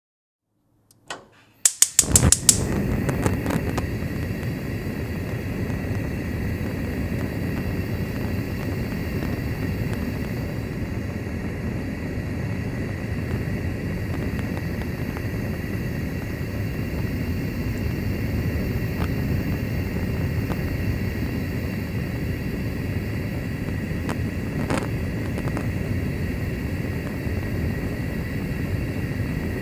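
Gas stove burner being lit: a quick run of igniter clicks about two seconds in, then the burner flame catches and burns with a steady, low rushing hiss.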